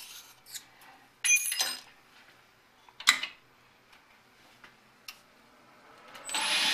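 A few sharp metallic clicks and clinks, then about six seconds in the Grizzly lathe's spindle starts up and runs with a steady whir and a thin high whine.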